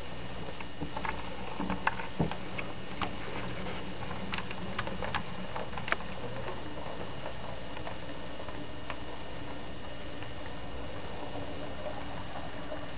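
HO scale model train, an SW9 switcher with a caboose, rolling along the track, its wheels clicking sharply and irregularly over rail joints and turnouts. The clicks come thickest in the first six seconds and thin out as the train moves off, over a steady low hum.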